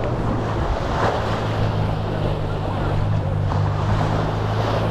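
Waves washing on a sandy beach, with wind on the microphone and a steady low motor hum beneath.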